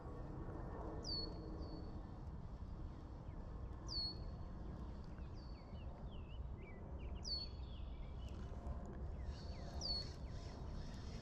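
A bird repeating a short high call four times, about every three seconds, each a quick drop in pitch into a brief held note. Fainter chirps from other birds come in the middle, over a steady low rumble.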